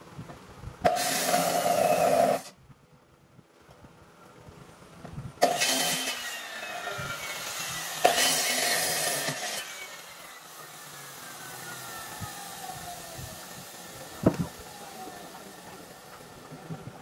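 Handheld electric circular saw cutting along a thick wooden slab in three loud bursts. After the last one, the trigger is released and the blade's whine falls slowly as it spins down. A single sharp knock sounds during the spin-down.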